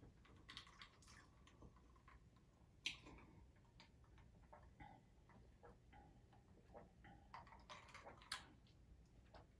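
Near silence with faint scattered clicks and ticks as a person sips a drink from a glass. The sharpest click comes about three seconds in, with a small run of ticks near the end.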